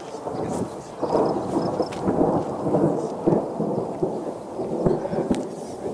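Thunder rumbling from a nearby thunderstorm, louder from about a second in and rolling on in uneven swells.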